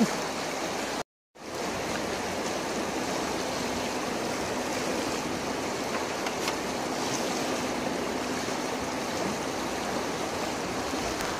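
Steady rush of flowing river water, cut off to silence for a moment about a second in.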